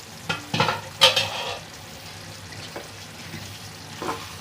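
Tomato-onion chutney sizzling in a pan while being stirred with a metal spoon, with a few ringing clinks of spoon against pan in the first second and another near the end.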